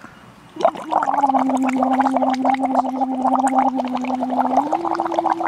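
Air blown through a straw into a cup of water, bubbling hard with rapid crackly pops over a steady pitched tone that rises slightly near the end.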